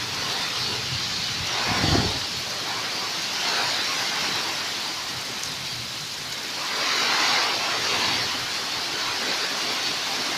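Heavy rainstorm: a steady pour of rain that swells louder twice, briefly about two seconds in and again for a longer spell past the middle, as gusts of the storm drive it.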